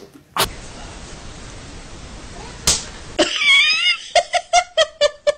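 A sharp slap on skin a little past halfway, then a high wavering squeal and a quick run of about seven short giggles from a small child.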